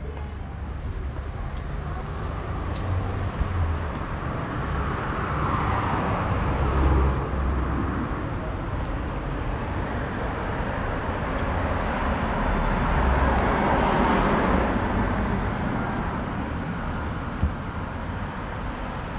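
Street traffic: two vehicles pass one after the other, the first swelling up and fading about six seconds in, the second about fourteen seconds in, over a steady low rumble.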